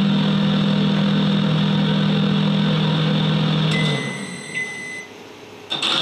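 Microwave oven sound effect playing back: the steady hum of the running oven cuts off about four seconds in, followed by a beep of about a second. A sharp click comes near the end.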